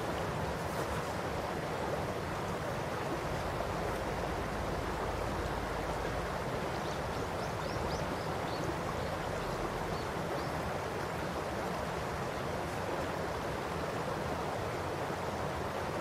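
Shallow river running over a stony gravel bed, its water babbling steadily with an even, unchanging rush.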